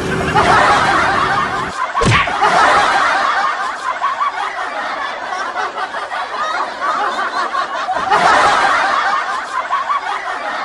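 Laughter: sustained snickering and chuckling, swelling again near the end, with a short thump about two seconds in.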